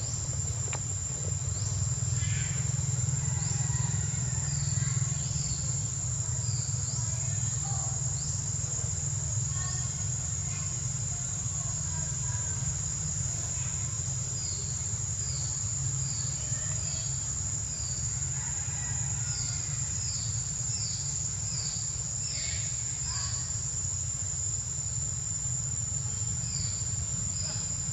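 Outdoor insect chorus: a steady high-pitched drone, with runs of short falling chirps about twice a second, over a low steady rumble.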